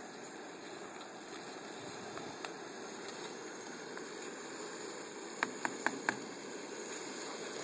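Rice dish simmering and sizzling in a pan on a Coleman Dual Fuel camp stove, a steady hiss of burner and cooking food, while a spoon stirs it. About two-thirds of the way in, four sharp clicks of the spoon knocking against the pan.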